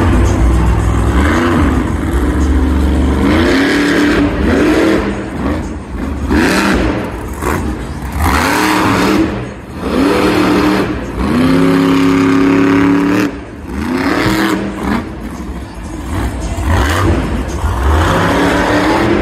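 Monster Mutt Dalmatian monster truck's supercharged V8 revving hard again and again, its pitch climbing and falling with each stab of the throttle. The engine drops off briefly twice near the middle before it revs up again.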